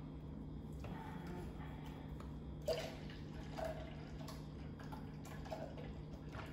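Milk poured from a carton into a stainless steel pot of corn liquid, faint splashing, with a few light knocks, over a steady low hum.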